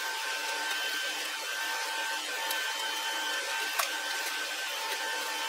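A steady whining machine hum with a high hiss, over which a few light clicks sound as screws are set into the miner's fan grills.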